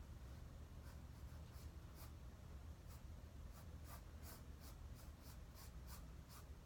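Faint, short scratchy strokes of a drawing implement on paper, coming irregularly and more often in the second half, over a steady low hum.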